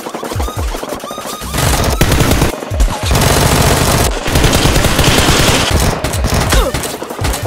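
Rapid automatic gunfire sound effects, many shots in quick succession, densest and most continuous in the middle, over background music.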